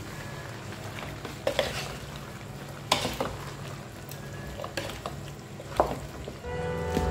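Food frying in a pan while it is stirred with a utensil, with a few sharp clicks of the utensil against the pan. Background music comes in near the end.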